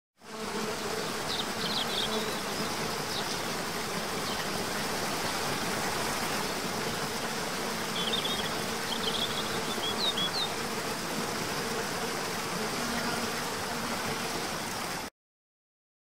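Waterfall ambience: falling water making a steady rushing hiss, with a faint steady insect-like buzz underneath. A few brief high chirps come about a second in and again around eight to ten seconds. The sound starts just after the opening and stops abruptly about a second before the end.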